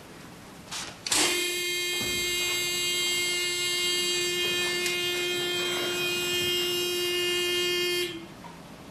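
Police interview tape recorder sounding its steady electronic start-of-recording buzz for about seven seconds, with a click of the machine just before. The tone is the signal that the interview tape has begun recording.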